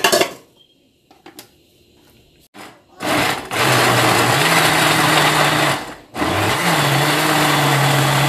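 Countertop electric blender grinding green chillies, ginger, onion and ripe papaya with a little water into a paste: the motor starts about three seconds in and runs steadily, stops for a moment about six seconds in, then starts again. Before it, a short burst of noise at the start and a few faint clicks.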